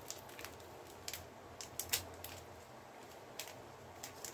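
Quiet, scattered light clicks and ticks, about eight in all, as a container of dried oregano is handled over the pan, with a faint low hum underneath.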